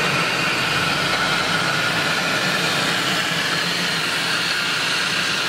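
Air compressor running: a steady machine hum under a strong, even hiss of air.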